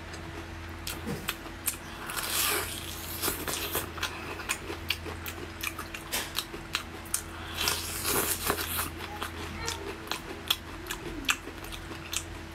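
Biting and chewing a homemade fried chicken leg covered in cheese sauce: many sharp mouth clicks and crackles, with longer crunchy bites about two seconds in and again around eight seconds.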